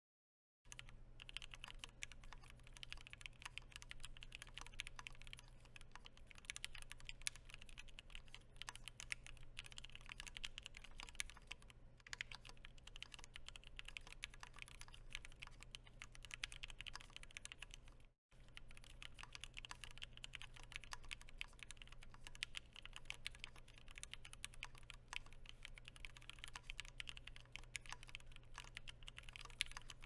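Typing on a Keychron Q10 aluminium Alice-layout mechanical keyboard with hand-lubed switches (nylon housings, POM stems) and Krytox 205g0-lubed stabilizers: a steady stream of fast keystrokes, broken by two brief silences, near the start and about halfway. On some keys, the L above all, there is a slight sound the typist likens to interference and cannot explain.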